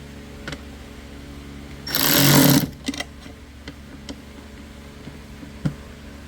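A cordless power screwdriver runs in one short burst of under a second, about two seconds in, driving a screw on the plastic air filter housing cover until it is snug. A few faint clicks and taps are heard around it.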